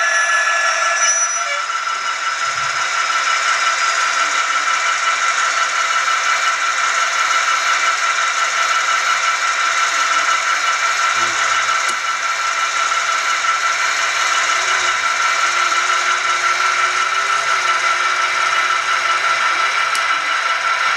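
HO-scale model turntable turning with a model diesel locomotive on it: a steady mechanical whir with a constant high hum from the turntable drive, mixed with the locomotive's sound-decoder engine running.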